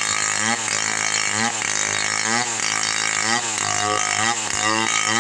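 Two-stroke chainsaw running at high revs as it cuts through falcata wood, its pitch dipping and recovering about once a second as the chain bites.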